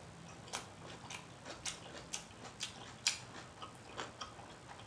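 Close-miked wet mouth smacking while chewing a bite of Chicago-style hot dog: sharp, short lip-smacking clicks about twice a second, the loudest about three seconds in.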